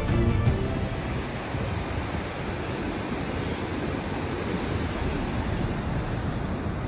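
Ocean surf breaking and washing up a flat sandy beach, a steady rushing noise, with wind on the microphone.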